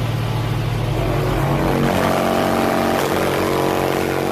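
Competition car audio system in a parked car playing bass at very high volume, heard from outside the car, loud and distorted. More held tones join in about halfway through, and it cuts off suddenly at the end.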